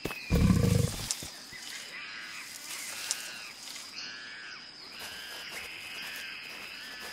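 Dinosaur sound effects: a short, deep Tyrannosaurus roar about half a second in, loudest of all, then a string of short, high, squeaky chirps from a baby Tyrannosaurus, about one a second.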